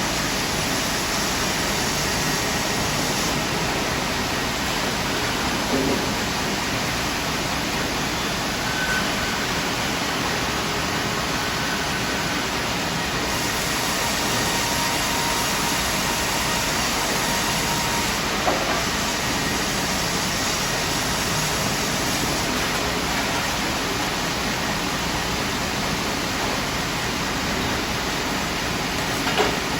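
Double-cut band sawmill running with a steady, even mechanical noise, a faint whine and a few small knocks.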